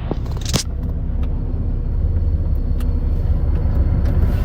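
Steady low rumble with a few light clicks, loudest near the start.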